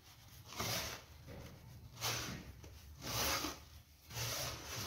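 Hands rubbing semolina mixed with margarine and oil between the palms and against a wooden bowl: four soft, gritty swishes, about one a second, as the fat is worked into the grain.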